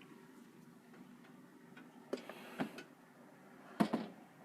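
1970s Superelectric box fan running on high with a steady electrical buzz from its metal motor, which the owner takes to be a fault in the high-speed setting. A few sharp clicks and knocks come about halfway through and again near the end, the last the loudest.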